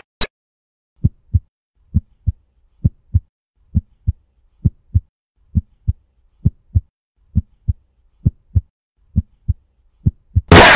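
Heartbeat sound effect: pairs of low thumps, about one beat every second, after a short click. Near the end a sudden, very loud harsh noise blast cuts in, the jumpscare.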